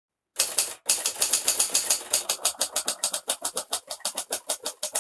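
Typewriter being typed on fast: a rapid run of sharp key strikes, about eight or nine a second, starting abruptly about half a second in.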